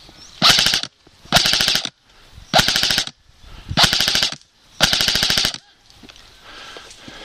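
Airsoft rifle firing five short full-auto bursts, each about half a second of rapid clicking shots, spaced about a second apart.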